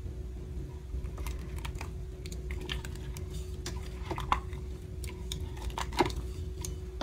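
Sticky slime being pulled off a stand mixer's dough hook and scraped from a plastic tub into a stainless steel bowl: a run of small sticky clicks and pops, the two sharpest about four and six seconds in, over a steady faint hum.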